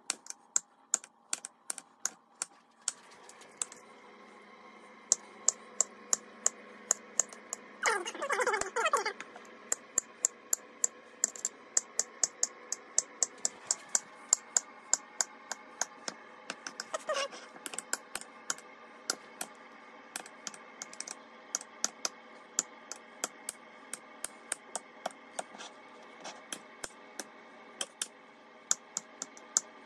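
A knife slicing frozen bananas on a ceramic plate: a few sharp clicks a second as the blade goes through the hard fruit and hits the plate. A steady hum comes in about three seconds in, and there is a brief wavering sound around eight seconds in.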